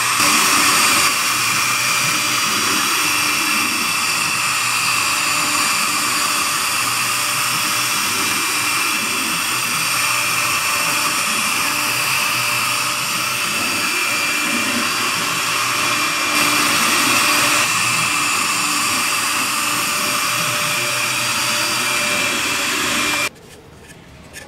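CNC router spindle running steadily with a high whine while its tapered carving bit cuts a 3D relief into wood. The sound cuts off suddenly near the end, leaving only quiet room sound.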